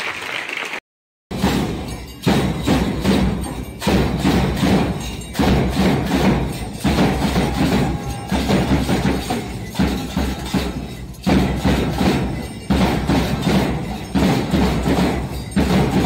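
School percussion band of bass drum, drums and hand cymbals playing a steady marching beat, starting about a second in, with a heavy accent roughly every one and a half seconds.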